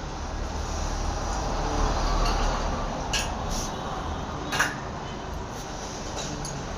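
Manual lathe running with a steady low hum, with a few sharp metallic clicks about three and four and a half seconds in.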